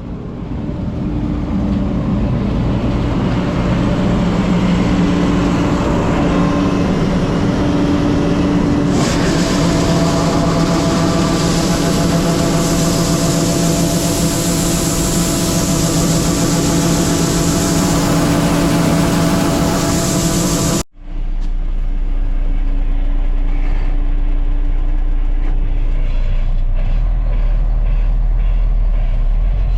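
Combine harvester running as it comes up to the truck, a steady engine drone with a loud hiss joining about nine seconds in. After a sudden cut about two-thirds through, a steady low engine rumble.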